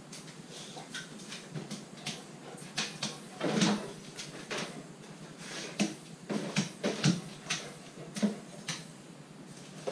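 A Rottweiler's claws clicking on a tiled floor, with a heavier knock about three and a half seconds in as the dog rears up and plants its front paws on a wooden kitchen worktop. A run of knocks and clatters follows as it paws at the counter.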